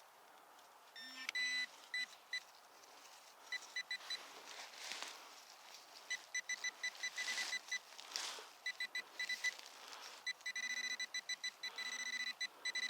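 Nokta Makro Simplex Plus metal detector sounding repeated strings of short high-pitched beeps as the coil sweeps over targets, mixed with a few short low tones, the pitch the Simplex gives for iron. Some rustling bursts come in between.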